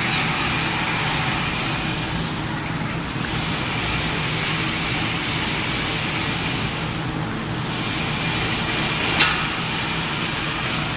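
Steady mechanical noise of bedding-factory machinery running, with one sharp click about nine seconds in.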